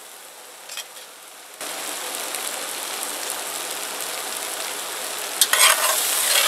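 Corn and spices frying in a black pot: a steady sizzling hiss that starts suddenly about a second and a half in. Near the end a spatula scrapes through the pot in several stirring strokes.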